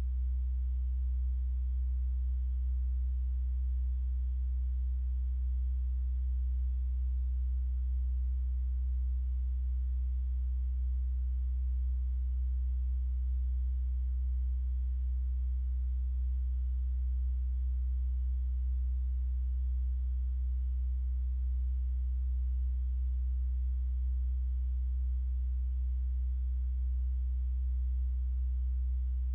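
A steady, unchanging low-pitched hum.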